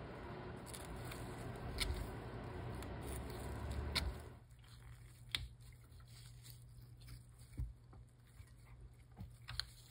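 Faint rustling of gloved hands working close by for about the first four seconds, then scattered small clicks of wire leads and tools as a resistor is fitted to a terminal strip on a tube radio chassis. A steady low hum runs underneath.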